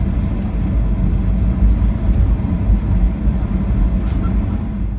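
Steady low rumble inside an airliner's cabin as the aircraft rolls along the runway after landing, easing slightly near the end.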